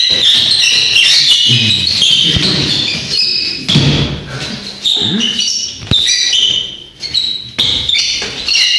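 Repeated high squeaks with thuds and a sharp knock near the six-second mark, from breakdancing on a squeaky floor.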